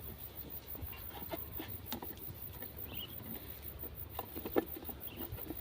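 Scattered light crackles and rustles over a low steady rumble, with a faint, fast, high ticking throughout.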